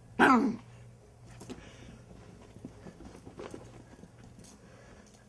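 Chihuahua puppy gives one short, loud bark that falls in pitch, then the quieter, irregular clicking of his paws on a wooden floor as he runs.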